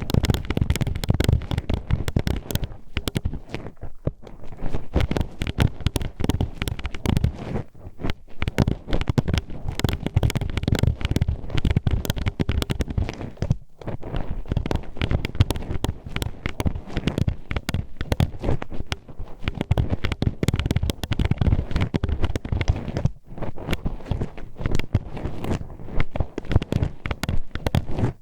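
Metal hairpin poked and scraped inside the ear of a binaural ASMR microphone: a dense, rapid run of sharp clacks, clicks and scratches, broken by a few short pauses.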